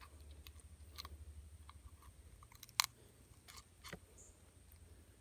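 Soft clicks and crunchy handling noises as hands work a steel airgun-fishing dart out through a speared tilapia's head, with one sharper click about three seconds in.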